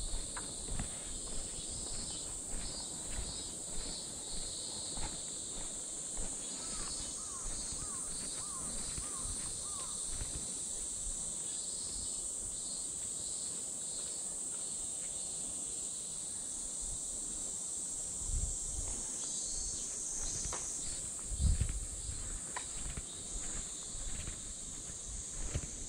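Steady high-pitched chorus of cicadas with pulsing insect calls, over soft footsteps of a person walking. A short run of about six repeated chirps comes about seven seconds in.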